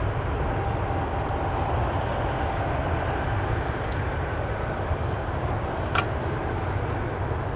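Four GEnx engines of a Boeing 747-8F freighter running, a steady loud jet noise with a deep rumble underneath and a faint whine. A single sharp click about six seconds in.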